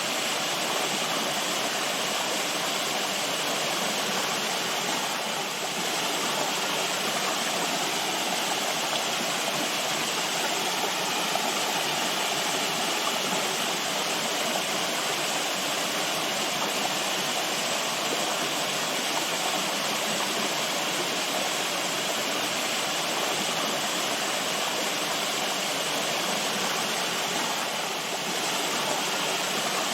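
Running water, a stream or small cascade, making a steady, even rushing sound.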